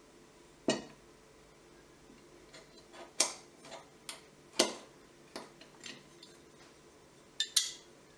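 Small metal parts of a Sig Sauer P226 clicking and clinking against the frame as the hammer and its pin are fitted by hand. The sounds are sharp single clicks spread irregularly, with two in quick succession near the end.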